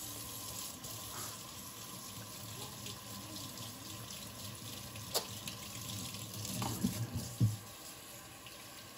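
Kitchen tap running: a steady rush of water, with a sharp click about five seconds in and two low knocks around seven seconds.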